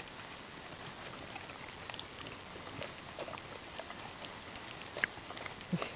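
Dog gnawing on a chew, with faint, irregular small clicks and crunches from her teeth.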